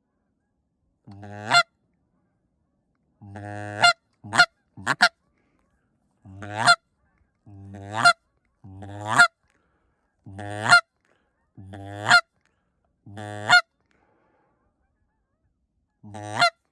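Goose call blown in a series of honks, each starting low and breaking sharply up to a loud high note, with a quick double cluck a little over four seconds in: calling to try to turn geese flying past.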